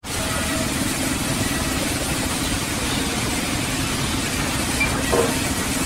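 Vertical band sawmill running steadily with a low, even machine hum.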